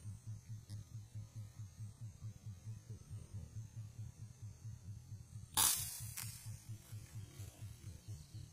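A single sharp air-rifle shot about five and a half seconds in, followed by a fainter knock about half a second later. Under it runs a low hum pulsing roughly three times a second.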